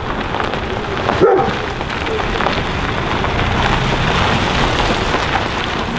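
Toyota Tacoma pickup rolling up a gravel driveway, its tyres crunching on the gravel over the engine, growing louder as it nears. A brief pitched sound cuts in about a second in.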